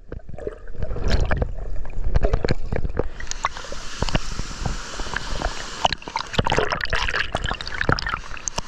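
Water sloshing, bubbling and gurgling around an action camera held at and under the surface. It is muffled underwater for the first three seconds, then turns brighter, with splashing and the hiss of the waterfall, as the camera breaks the surface.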